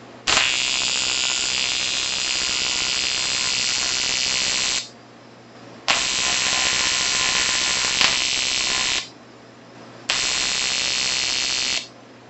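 TIG welding arc on an aluminium air-conditioning tube at about 40 amps, struck three times. Each arc starts with a sharp crack, runs as a steady buzzing hiss for about four, three and two seconds, then tails off.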